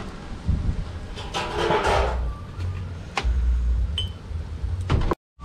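Wind buffeting the microphone in an uneven low rumble, with a brief rushing noise about a second and a half in and a few sharp clicks. The sound cuts out for a moment just before the end.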